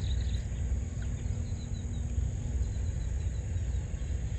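Wind rumbling on the microphone with insects chirping: a steady high trill and faint short chirps repeated over it.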